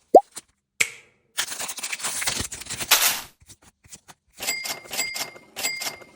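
A string of short, sudden sounds: a quick rising blip, then about two seconds of dense rustling noise, then three sharp clicks with a brief ringing tone, about half a second apart.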